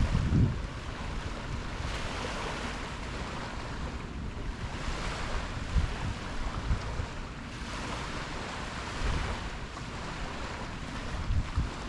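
Ocean waves washing in, the hiss of the surf swelling and easing every few seconds. Wind gusts buffet the microphone with low rumbles, strongest right at the start and near the end.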